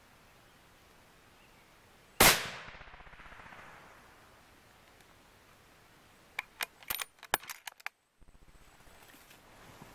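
A single rifle shot, sudden and loud, whose report rolls away and dies out over a second or two. A few seconds later comes a quick run of sharp clicks.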